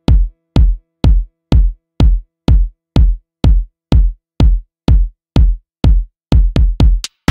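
Electronic dance music laid over the picture, a drum-machine kick drum beating steadily about twice a second, with a quicker run of hits near the end.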